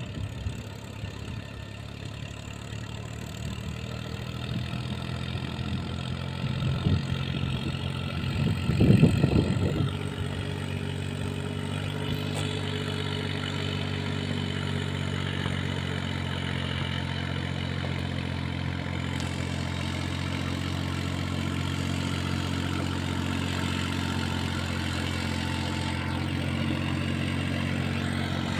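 Massey Ferguson 7235 tractor's diesel engine running steadily under load while pulling a disc harrow, growing somewhat louder towards the end. A short, louder rumble breaks in about nine seconds in.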